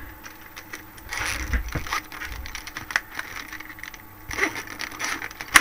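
Plastic marker pens clicking and clattering as they are picked up and sorted on a desk, with a sharp click near the end.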